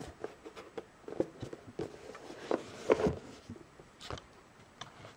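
Cardboard retail box being handled and opened by hand: an irregular string of short scrapes, rustles and knocks, loudest about three seconds in.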